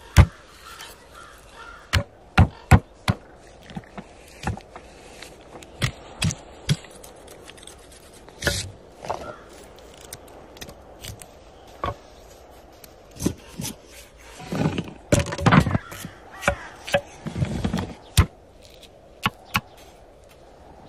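Food being prepared on a wooden cutting board: a knife chopping in single sharp knocks at irregular intervals, with a longer stretch of scraping and handling about fifteen seconds in.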